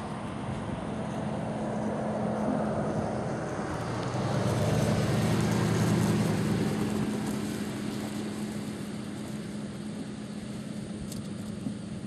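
An engine passing by: a steady low hum that grows louder to a peak about five to six seconds in, then fades away.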